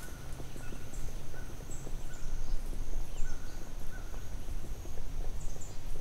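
Forest ambience: small birds chirping in short repeated calls over a steady high-pitched hiss and a low rumble.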